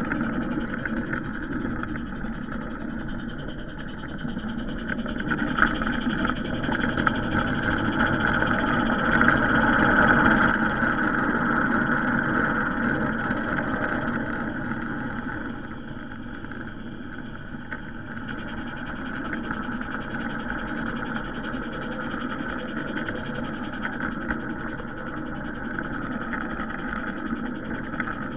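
Large-scale garden railway train running along the track, heard from on board a wagon: a steady mechanical running noise of motor, gearing and wheels on the rails. It swells louder about a third of the way through, then settles back.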